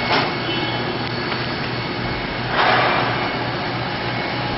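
Haas VF-5 CNC vertical machining center running a program, its 40-taper spindle turning at about 7,500 RPM: a steady machine hum with a thin whine. About two and a half seconds in, a brief louder rush of noise swells and fades.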